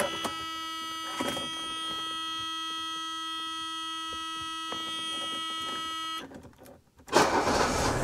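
Mercedes-Benz W126 turned to the ignition-on position: a steady electronic warning tone sounds for about six seconds and then stops, and about a second later the engine cranks and starts.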